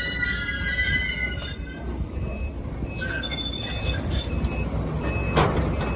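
Excavator running with a steady engine rumble and high metal-on-metal squeals in the first second and a half. After that come short, repeated high tones, and a sharp knock near the end.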